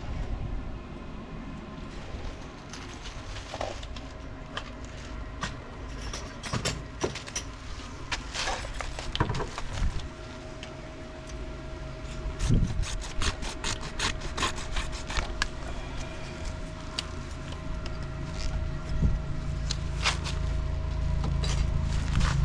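Hand-tool work on electrical conduit and wiring: scattered clicks, taps and scraping of metal and plastic being handled and cut.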